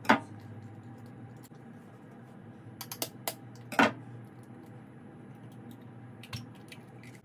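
Raw eggs being cracked open by hand: a few sharp taps and clicks of eggshell being struck, the loudest a little before four seconds in, over a faint steady hum.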